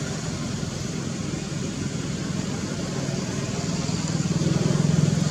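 A motor vehicle's engine running steadily, getting louder toward the end as it comes closer.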